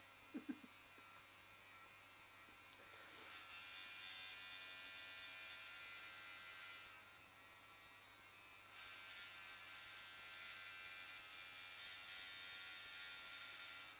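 Electric tattoo machine buzzing steadily as it runs, with a short louder sound about half a second in and a dip in level for a couple of seconds near the middle.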